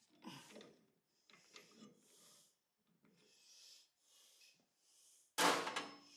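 Metal lathe chuck being loosened with its chuck key and a brass tube slid out of the jaws: short scraping and grinding rubs in several bursts. About five and a half seconds in comes one loud metallic clank with a brief ring.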